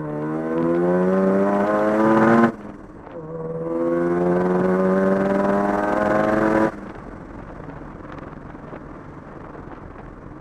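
Mazda FD RX-7's street-ported 13B twin-rotor engine with a single turbo, heard from inside the cabin under hard acceleration. A rising pull is cut by an upshift about two and a half seconds in, and a second pull starts about a second later and climbs more slowly. The throttle closes nearly seven seconds in, and the engine falls to a quieter, steady drone.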